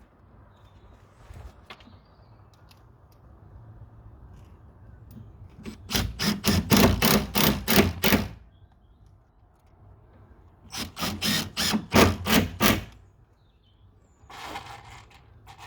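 Screws being driven into the gate's timber with an impact driver: two runs of rapid knocking, each about two seconds long, fixing the ring latch.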